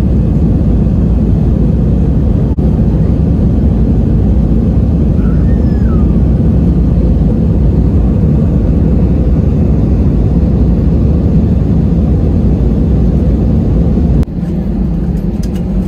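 Cabin noise inside an Airbus A320 on its night approach: a loud, steady rumble of jet engines and rushing air. About 14 seconds in it drops suddenly to a quieter level.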